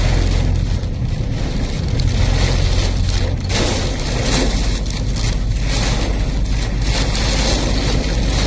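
Cyclone-strength wind and heavy rain: a steady, loud rush of wind buffeting the microphone with a deep rumble, and the hiss of driving rain.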